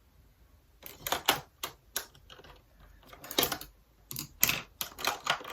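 An irregular run of sharp, light clicks and taps, about a dozen over four seconds, starting about a second in.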